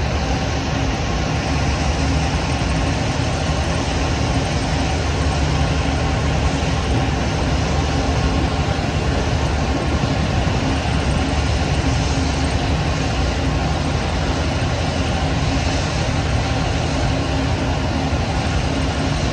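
Motorboat engine running at a steady speed under way, a constant low hum under an even rushing noise of wind and water.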